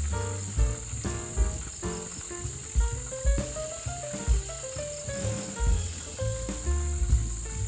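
Crickets trilling in a steady high-pitched drone, under background music with a steady low beat and a melody.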